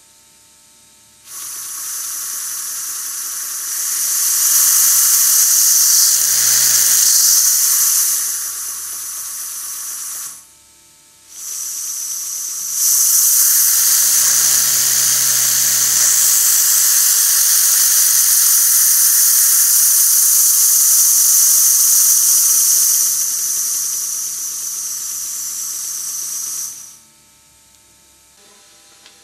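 Four-cylinder oscillating model marine engine running on compressed air, its exhaust a steady hiss. The hiss starts about a second in, grows louder as the regulator is opened, eases back and stops around ten seconds in. It starts again almost at once, runs louder for about ten seconds, drops back and cuts out a couple of seconds before the end.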